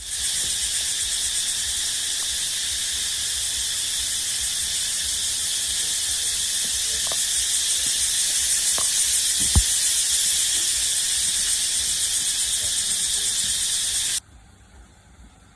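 Loud night chorus of insects after rain: a dense, steady, high-pitched buzzing with a fast shimmering pulse that cuts off suddenly near the end. A single low bump is heard about ten seconds in.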